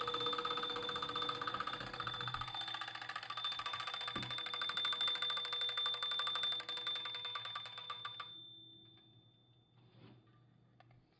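Antique French L&A carriage clock's alarm bell ringing with rapid hammer strikes, which slow and stop about eight seconds in as the alarm runs down. A few faint clicks follow.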